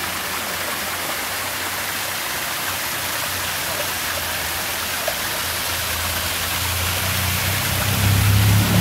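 Small waterfall splashing down a rock face into a pool: a steady rush of falling water. In the last few seconds a low steady hum rises beneath it.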